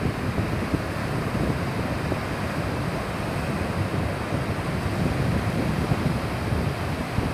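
Sea surf washing in on a flat sandy beach, a steady rushing noise, with wind buffeting the microphone.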